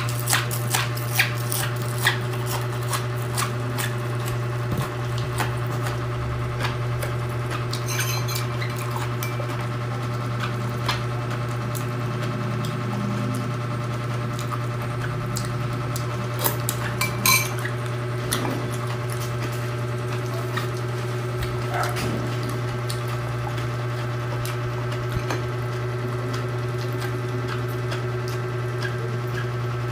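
Close-up eating sounds: chewing raw cabbage and green onion, with short clicks and clinks of a spoon against a ceramic bowl, over a steady low hum.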